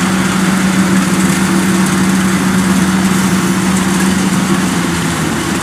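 Kubota DC105X combine harvester's diesel engine and threshing machinery running steadily: a loud, even drone with one strong low tone that dips slightly in pitch near the end.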